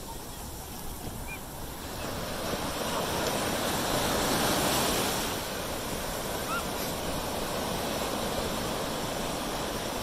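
Ocean surf breaking and washing in over the shallows, a steady rush that swells about two seconds in, peaks a couple of seconds later, then settles.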